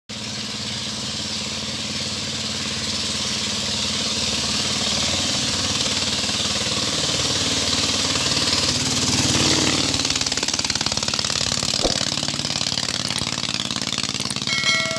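Small motorised wooden canal boat's engine running steadily as the boat approaches, growing louder to a peak about nine or ten seconds in with a slight drop in pitch as it passes, then easing off as it moves away. A sharp click sounds near twelve seconds and a short chime near the end.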